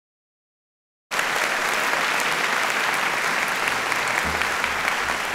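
Audience applause that cuts in suddenly about a second in after silence, then goes on steadily as dense, even clapping.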